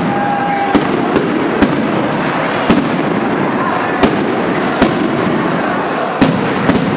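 Aerial fireworks shells bursting overhead: about eight sharp bangs at uneven intervals, the loudest about six seconds in, over a steady din of crackle and noise.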